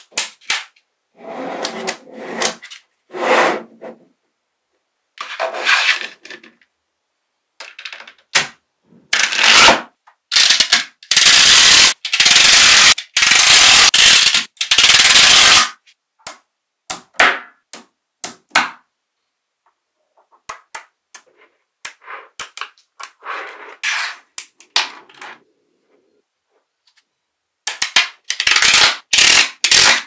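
Small magnetic balls clicking and clattering as they snap together and are pressed and slid into place by hand, in short bursts with a long, dense run of rattling clicks in the middle.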